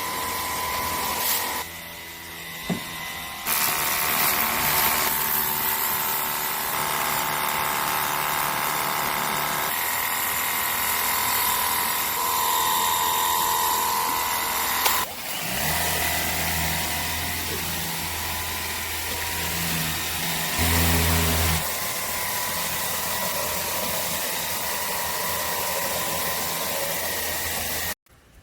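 Ontel Turbo Jet HydroX5 Pro cordless pressure washer running: a steady electric pump whine under the hiss of its water spray, broken off and restarted abruptly a few times.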